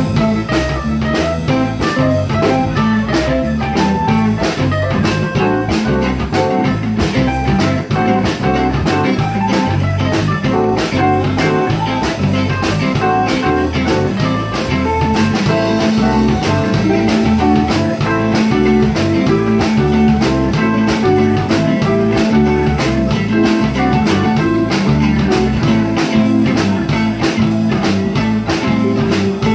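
Live blues band playing an instrumental passage: electric guitar and blues harmonica over keyboard, bass guitar and a drum kit keeping a steady beat.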